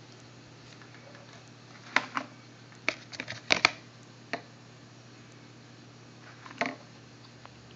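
Scattered sharp clicks and taps of a clear plastic container being handled, with a quick cluster of them about three to four seconds in and a last pair near the end, over a faint steady low hum.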